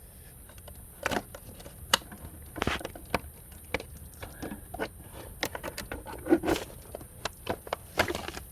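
Handling noise: irregular clicks, knocks and short scrapes of objects being picked up and moved about.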